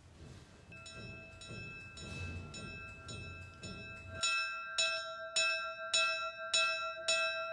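A small monastery bell rung by hand with a bell rope, its clapper striking again and again at nearly two strikes a second, each strike leaving a steady ringing tone. The strikes start softly under a low rumble and become much louder about four seconds in.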